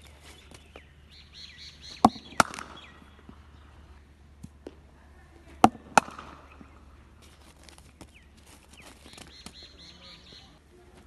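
Cricket ball being hit with a bat in batting practice: sharp knocks come in pairs about a third of a second apart, twice, with a third pair starting near the end.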